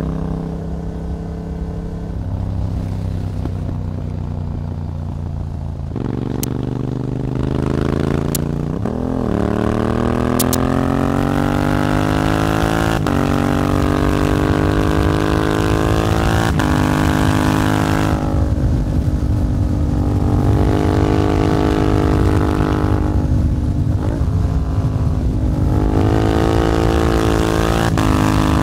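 2014 Yamaha MT-07's parallel-twin engine through an Akrapovič track exhaust, pulling steadily at low revs, then accelerating hard: the revs climb in repeated runs, each cut by a quick drop at an upshift made with the Healtech quickshifter. The revs ease off and hold steadier for a few seconds near the middle before climbing again.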